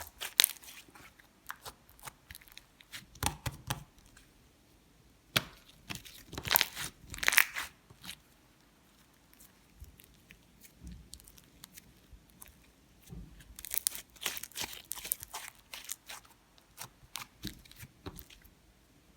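Slime being squished, stretched and pulled apart by hand: irregular sticky crackles and tearing sounds. The louder bursts come about six to eight seconds in and again around fourteen to sixteen seconds in.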